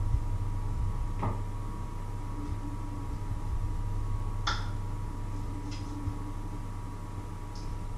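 Steady low hum with a thin high tone, overlaid by a few short clicks and knocks of kitchen work with a knife at a wooden cutting board, the loudest about halfway through.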